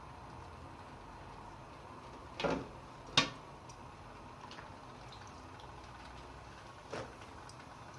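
Blanched cabbage leaves being lifted out of a pot of hot water: a brief splash of water about two and a half seconds in, then a sharp knock, and a smaller knock near the end.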